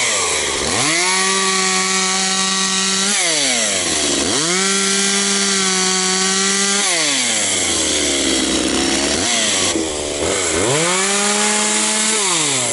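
A small engine revved hard three times: each time the pitch climbs quickly from a low idle to a high, steady whine, holds about two seconds, then drops back. A weaker, lower rev comes between the second and third.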